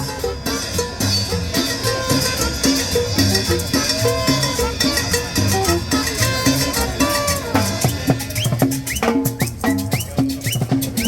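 Tropical dance band music in a cumbia style, with drum kit and percussion keeping a steady beat under melodic instrument lines.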